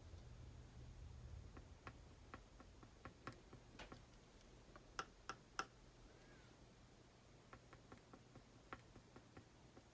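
Stylus tip tapping dots of acrylic paint onto a canvas panel: faint, irregular ticks, the sharpest few about halfway through.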